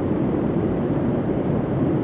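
Steady low hum of an ambient bunker soundscape: an even, unchanging noise with no distinct tones, strongest in the low range.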